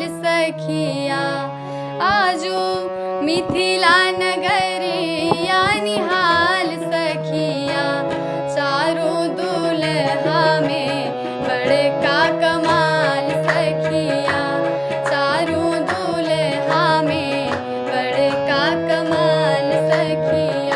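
A girl singing an Indian song with wavering, ornamented notes over a steady held drone and regular percussion.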